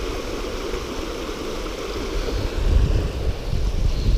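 Wind buffeting the camera microphone, with a stronger gust past the middle, over the steady rush of river water pouring through a channel beside a concrete weir.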